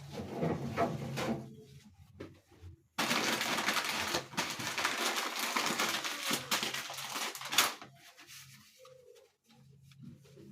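Plastic shopping bags and food packaging rustling and crinkling as groceries are taken out and handled. There is a short burst at the start, then a longer, louder stretch of crackling through the middle.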